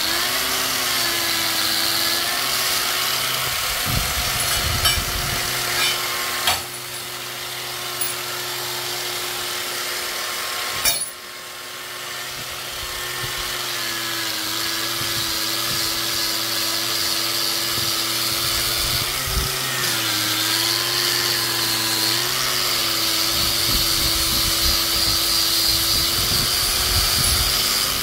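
Electric buffing wheel spinning up and running steadily while buffing a stainless steel motorcycle exhaust header pipe with white polishing compound. The motor hum dips in pitch a couple of times in the second half, and two sharp knocks come about a third of the way in.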